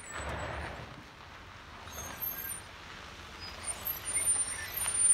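Ford Expedition SUV rolling slowly down a steep dirt-and-gravel track, its engine low and its tyres crunching. The brakes give thin squeals now and then, a sign of the driver holding the SUV back on the descent. The sound grows louder near the end as the SUV passes close by.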